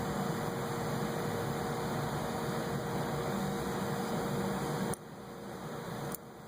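Steady mechanical hum and hiss with a constant tone, dropping off abruptly twice near the end.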